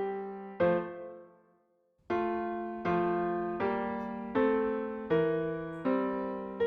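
Background music: a piano-like keyboard playing held chords, one struck about every three-quarters of a second, each fading slowly. The music dies away to a short silence about a second and a half in, then the chords pick up again.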